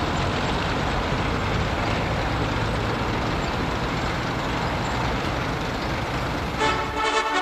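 A column of self-propelled artillery vehicles drives past with a steady rumble of heavy engines and road noise. A military brass band starts playing about six and a half seconds in.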